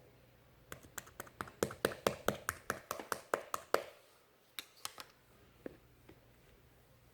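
Ivory slime worked by hand, giving a quick run of sharp clicking pops, about five a second for some three seconds, then a few scattered clicks.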